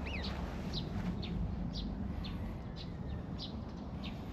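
A bird singing a run of short chirps, each falling in pitch, about two a second, over a steady low rumble.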